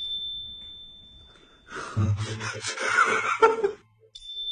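A single high ding that rings on and fades over about a second and a half. Then comes about two seconds of noisy gasping and laughter, and the same ding again near the end.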